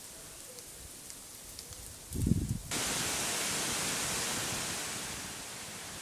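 Waterfall rushing: a steady, even hiss that starts abruptly a little before halfway, right after a single low thump.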